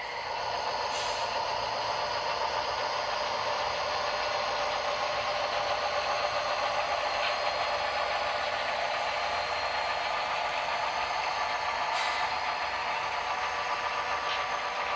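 Model diesel locomotives running over a model truss bridge: a steady mechanical running noise with rattle and a faint hum, and a couple of light ticks about a second in and near twelve seconds.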